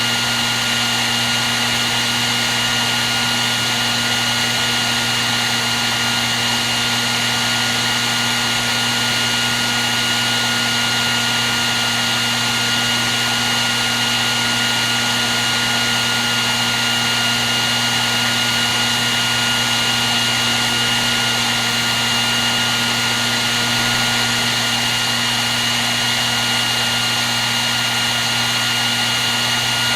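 Hair dryer running continuously at a steady speed: an even blowing rush with a constant motor hum and a faint high whine.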